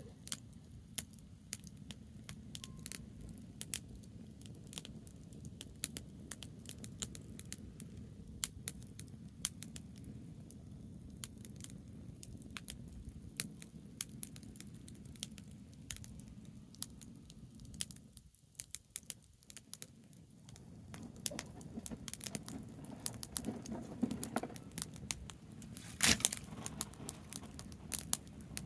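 Campfire of burning branches crackling, with frequent irregular sharp pops over a low steady rumble; one pop about 26 seconds in is the loudest.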